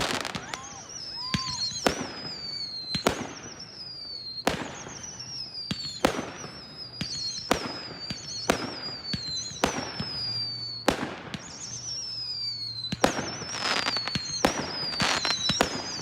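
Backyard fireworks display going off: a string of sharp bangs with a thin high whistle falling in pitch after many of them, the bangs coming faster near the end.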